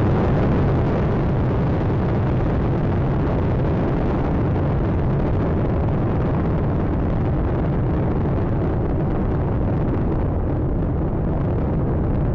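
Space Shuttle Atlantis's two solid rocket boosters and three main engines roaring steadily during the climb after liftoff. The noise is heaviest in the bass, and its higher hiss fades a little over the last few seconds.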